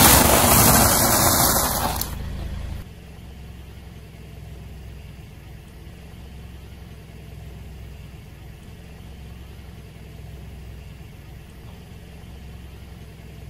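A loud rushing noise for the first two to three seconds, then a steady low rumble of a car engine idling.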